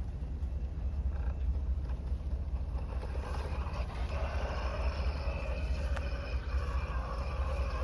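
Low rumble of wind buffeting the microphone, with a steady, high, multi-toned whine joining about three seconds in.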